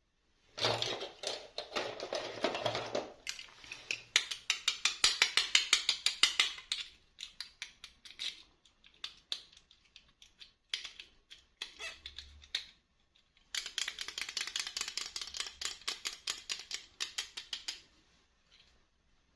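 Packaging being handled and opened for a miniature toy unboxing: bursts of rapid crackling and clicking, with scattered single clicks in the pauses between them.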